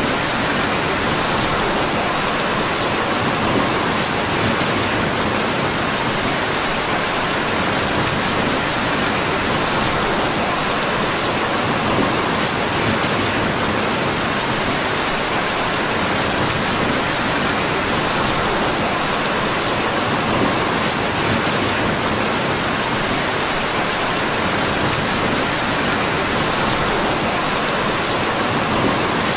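Steady rain falling, an even hiss that holds without letup.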